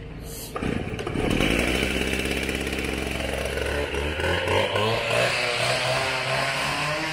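Two-stroke gas cut-off saw running after a pull start, idling with a steady engine note that rises and wavers about four seconds in.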